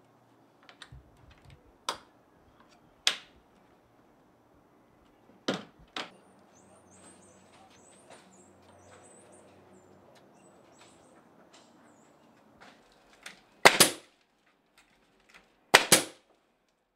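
Sharp isolated knocks of a hammer driving nails into a door frame, then near the end two loud nail-gun shots, each a quick double crack, fastening the French door's trim. Faint high bird chirps sound in the quieter middle stretch.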